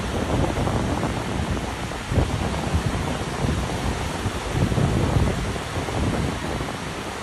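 Surf breaking and washing up the beach, a continuous rushing that swells and ebbs, with wind buffeting the microphone.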